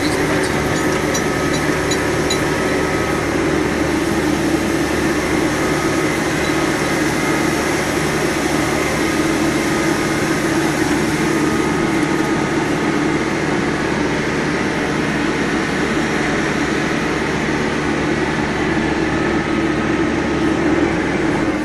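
Diesel engine of a Caterpillar loader running steadily as the machine drives along, heard from the operator's seat.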